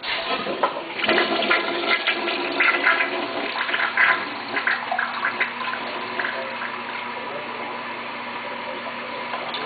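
American Standard tank toilet flushing: a sudden rush of water with loud gurgling for the first few seconds, easing after about five seconds into a steady flow of water.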